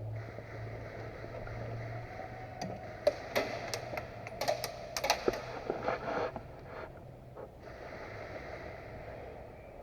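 Airsoft gunfire: about a dozen sharp cracks and clicks, irregularly spaced, starting a little under three seconds in and ending about seven and a half seconds in, over a low steady hum.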